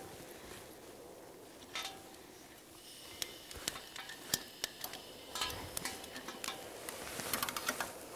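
Light metallic clicks and clinks of a propane cylinder's brass regulator and hose fitting being handled and connected to a steam drill's burner line. The clinks are scattered at first and come more often after a few seconds.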